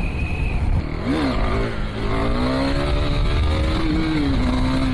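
Motorcycle engine revving: a short rise and fall in pitch about a second in, then a longer rev that climbs and sinks again, over a steady low rumble.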